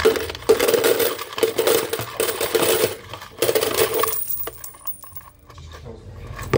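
Loose quarters clinking and jingling together as they are handled, dense for the first few seconds and thinning out to scattered clinks after about four seconds.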